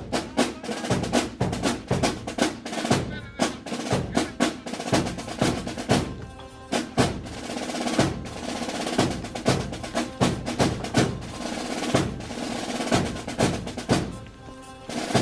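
Music led by snare drum rolls and quick drumbeats, with some held instrument tones in the middle.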